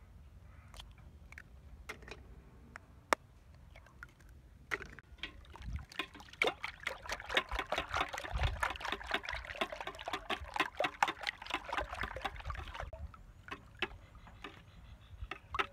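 A few sharp cracks of eggs being broken, then a wire whisk beating a large stainless steel bowl of raw eggs. About five seconds in come rapid sloshing strokes with the wires ticking against the bowl, which ease off near the end.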